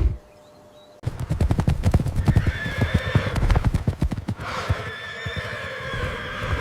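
Rapid clattering hoofbeats starting about a second in, with two long high-pitched animal calls over them.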